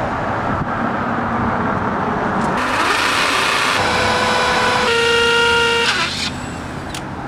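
Street traffic with a vehicle passing close by, and a car horn sounding one steady honk of about a second around five seconds in.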